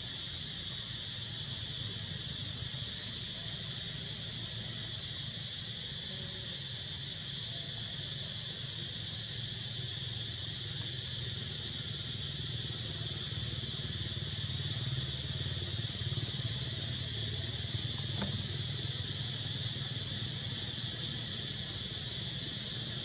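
A steady insect chorus, a continuous high-pitched drone, with a low rumble underneath.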